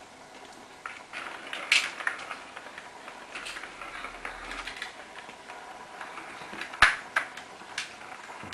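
Irregular plastic clicks and knocks as kittens paw and bat at a ball in a plastic circuit-track cat toy, with two sharper knocks, one a little under two seconds in and one near seven seconds.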